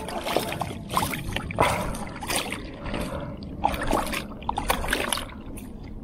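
Wet scraping and splashing noises in quick, irregular bursts as a grouper is handled on a kayak's plastic deck.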